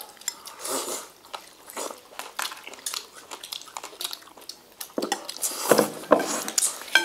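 People eating with chopsticks from porcelain bowls: chewing and mouth sounds with many light clicks of chopsticks against the bowls.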